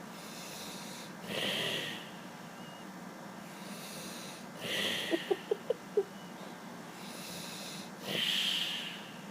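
A man snoring in his sleep: three hissing breaths about three seconds apart, the middle one followed by a quick rattle of five short pulses.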